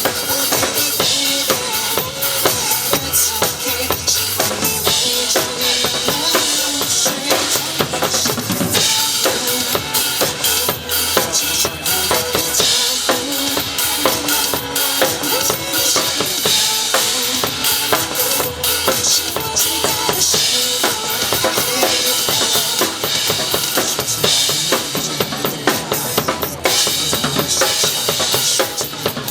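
A drum kit played live in a busy groove, with kick, snare and cymbal strikes over backing music.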